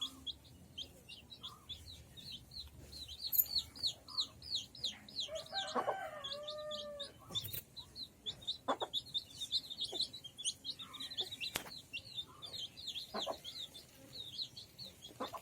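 Chicks peeping rapidly and without a break, with a hen's drawn-out call about six seconds in and a few sharp taps scattered through.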